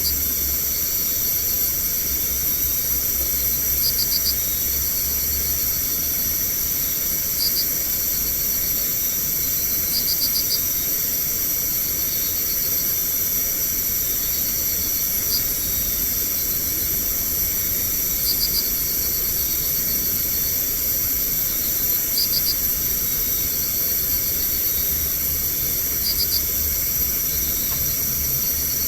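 Night insect chorus: a steady high-pitched trilling, with short bursts of chirps every few seconds.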